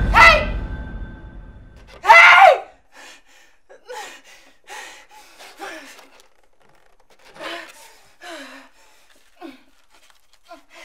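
A woman gasps sharply twice, loud and falling in pitch, then whimpers and sobs in short, shaky breaths.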